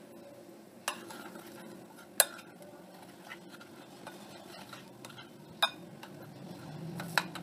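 A spoon stirring flour into milk in a cut-glass bowl to start a dough, with a soft, steady scraping and a few sharp clinks of the spoon against the glass, about four in all.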